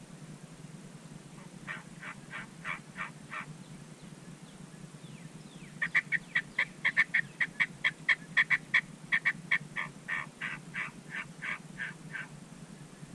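Turkey yelps: a short run of about six notes, then after a pause a long, louder run of some two dozen evenly spaced yelps, about four a second, growing softer near the end.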